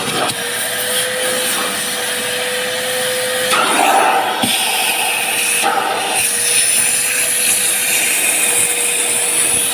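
Vacuum cleaner running steadily with a constant whine, its rushing noise shifting briefly twice midway.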